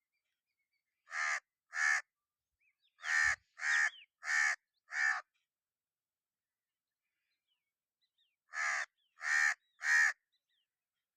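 Crow cawing: two harsh caws, then a run of four, then after a pause three more. Faint chirps of small birds in between.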